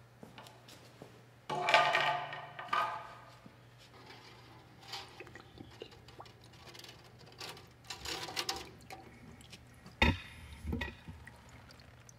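A wire mesh parts basket is lifted out of a metal bucket of carburetor cleaner, giving scattered metal clanks and rattles. The loudest is a ringing clank a couple of seconds in, and there is a sharp knock near the end.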